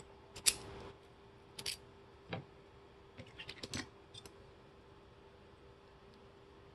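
Light clicks and taps of small lock parts as a Yale key-in-knob lock cylinder is taken apart by hand. A sharp click comes about half a second in, and a quick run of clicks comes around three and a half seconds.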